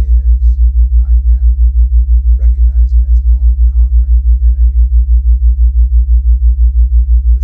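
Low, loud theta-wave tone pulsing evenly about five times a second, a brainwave-entrainment beat, with a faint voice speaking far beneath it.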